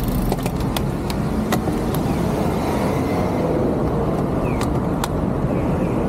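Road traffic at a city junction, steady and fairly loud, with several sharp clicks in the first two seconds and a couple more near the end: a cycling shoe's cleat knocking against a clipless pedal without locking in.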